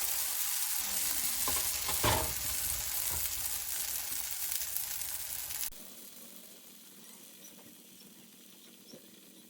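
Wheat-flour banana pancake batter sizzling in melted butter in a hot pan, with a single knock about two seconds in. The sizzling cuts off abruptly about two-thirds of the way through, leaving only a faint steady hum.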